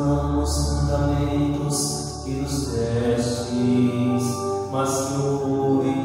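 Liturgical chant sung during Mass: a voice holds long notes that change pitch every second or so, over a steady low accompaniment.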